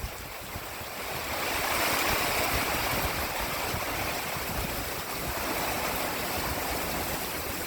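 Hard rain falling in strong wind: a steady rushing hiss that grows louder about a second and a half in and then holds.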